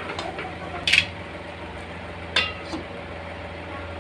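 Cookware knocks: a plastic spatula knocking in an aluminium kadai, then the aluminium lid set down on the pan with a short ringing clank. A few sharp knocks in all, over a steady low hum.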